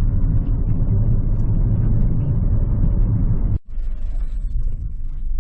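Road noise inside a moving car: a steady low rumble of engine and tyres. It breaks off abruptly about three and a half seconds in, and a quieter low rumble follows.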